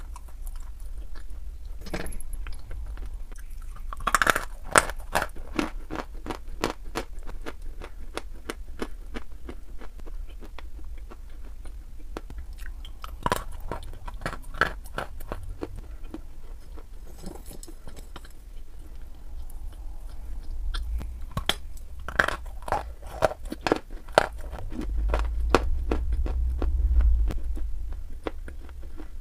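A person biting off and chewing chunks of dry chalk: a heavy crunch as each bite snaps off, about three times, each followed by a run of smaller, drier crunches as it is chewed.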